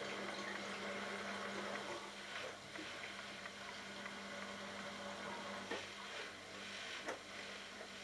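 Bosch Logixx WAS32461GB washing machine turning its drum with wet pillows inside: water sloshing over a steady motor hum. The hum stops about two-thirds through, with a couple of sharp knocks as the load drops in the drum.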